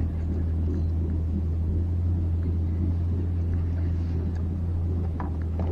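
Boat engine running steadily, a constant low drone.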